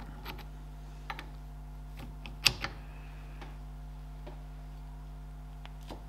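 Socket wrench clicking in scattered, irregular ticks as a nut is tightened to draw a wheel stud into a hub flange, the loudest click about halfway through. A steady low hum runs underneath.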